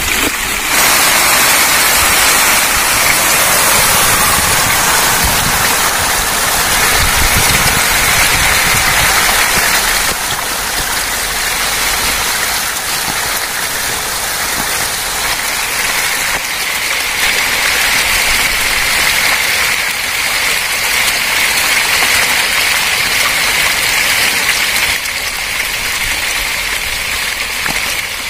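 A dense swarm of hybrid magur catfish thrashing and splashing in shallow water as they feed on a heap of pellet feed, a steady churning splash like heavy rain.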